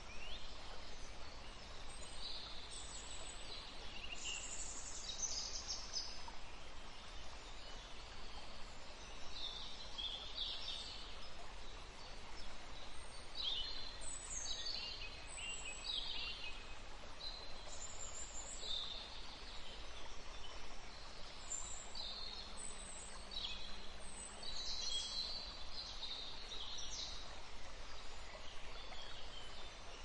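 Rainforest ambience: many birds giving short, high calls and chirps, overlapping and scattered throughout, over a steady background hiss.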